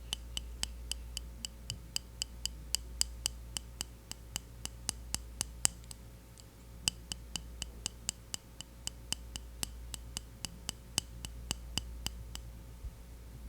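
Fingernails tapping steadily on the hard plastic case of a Hawaiian Tropic mineral sunscreen powder, about four crisp taps a second, with a brief pause midway.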